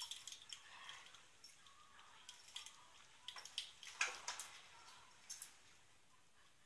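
A Pumi dog's claws and paws ticking and scuffing on a rug and a hard floor as it gets up and walks, a scatter of short faint clicks with the sharpest about four seconds in.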